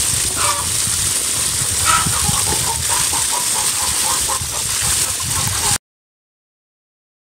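Water running from a garden hose into a wheelbarrow and splashing as a hank of naturally dyed sheep's wool is rinsed and worked by hand in detergent water. The sound cuts off to silence about six seconds in.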